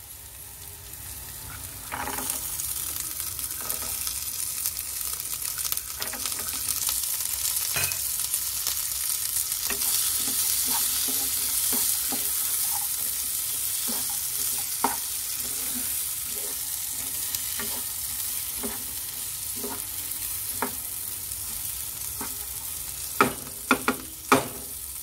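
Masala and green peas sizzling in a non-stick frying pan while a wooden spatula scrapes and taps against the pan in stirring. The sizzle grows louder about two seconds in, as the peas go in. There are a few sharp knocks near the end.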